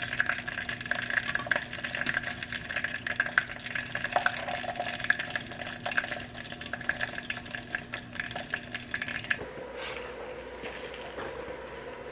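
Chicken pieces deep-frying in oil in a deep pot: a dense, steady sizzling crackle, with chopsticks tapping and scraping in a stainless-steel tray. About nine seconds in it cuts suddenly to a quieter, steady hum.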